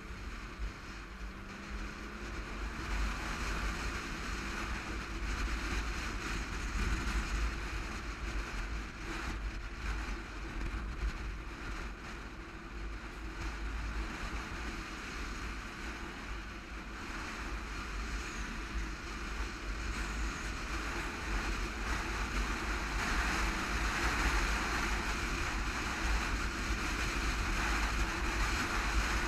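Wind rushing and buffeting over the microphone of a camera on a sport motorcycle riding at freeway speed, with the bike's engine running steadily underneath. It grows a little louder over the last several seconds.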